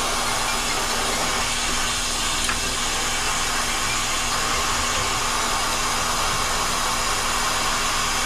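Brazing torch flame hissing steadily while it heats a copper refrigerant line joint on a compressor, softening the braze so the pipe can be pulled out.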